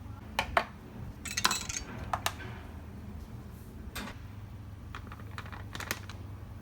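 Small hard objects being handled: a few sharp clinks and taps, bunched in the first two seconds and again near the end, over a steady low hum.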